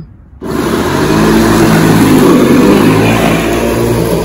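Bosch corded electric lawn mower switched on about half a second in, its motor and blade then running steadily and loudly as it cuts grass.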